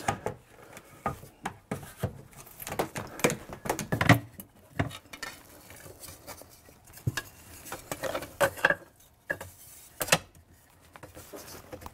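Wooden braces and bar clamps being handled and set into place on a countertop: scattered light knocks and clicks of wood on wood and stone, a few firmer knocks among them.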